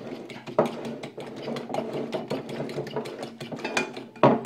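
A fork beating eggs in a white ceramic dish: a fast, steady run of light clicks and scrapes as the tines strike the dish, with a louder knock near the end.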